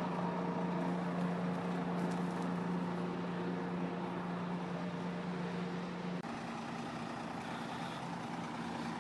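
A heavy vehicle engine idling steadily. About six seconds in, the hum shifts abruptly to a slightly higher pitch.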